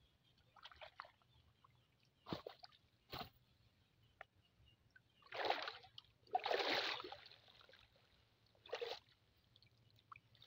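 Cast net being hauled up out of a river by hand: a series of separate water splashes and sloshes, with water running off the mesh. The biggest splashes come about five to seven seconds in.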